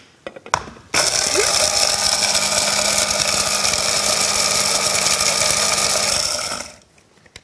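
Electric hand blender with a chopper attachment grinding dry pan-toasted bonito flakes and small dried anchovies into a fine powder. The motor starts suddenly about a second in, runs steadily with a hum under the noise of the grinding, and winds down near the end.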